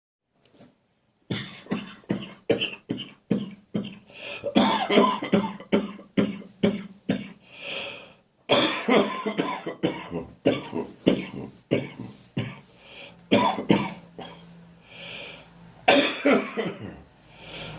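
A person's harsh, throaty cough from a winter chest cold, starting about a second in and coming in repeated fits of short, sharp coughs with breaths drawn in between.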